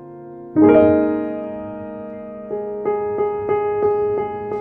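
Background piano music: a chord struck about half a second in and left to ring, then steady repeated notes about three a second.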